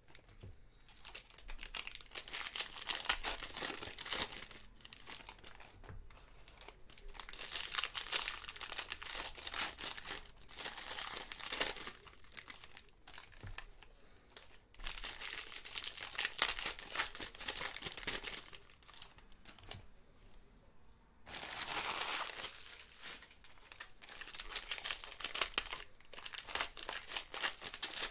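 Foil wrappers of 2018 Bowman Draft jumbo baseball card packs crinkling and tearing as the packs are opened by hand, in bursts of a few seconds with short pauses between.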